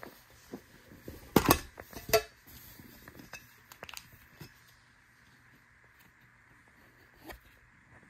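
Small metal Pokémon card mini tin being opened: two sharp metallic clanks as the lid comes off, about one and a half and two seconds in, the second ringing briefly, followed by light ticks of handling the tin and card.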